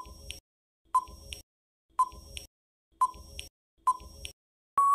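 Countdown timer sound effect: five short electronic beeps, one a second. Near the end a longer steady beep begins, marking the count running out.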